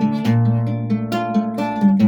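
Acoustic guitar played with fingers, plucked notes ringing over a steady bass between sung lines.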